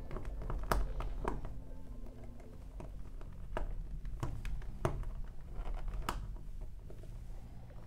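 Small plastic LEGO pieces clicking and tapping as fingers work tiny round pieces onto the studs of a build: about six sharp clicks, irregularly spaced. Faint background music runs underneath.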